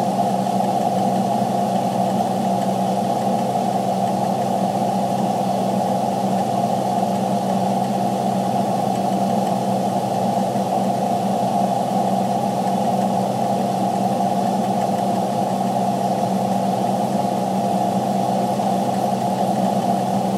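Freightliner truck's engine running steadily, heard inside the cab as a constant drone with a low hum that never changes in pitch or level.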